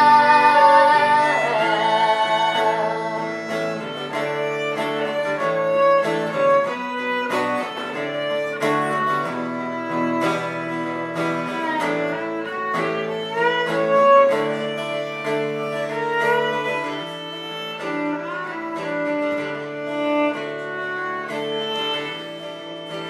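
Live country-folk band playing an instrumental break: guitar with a fiddle carrying the melody, opening on the tail of a held sung note over the first couple of seconds.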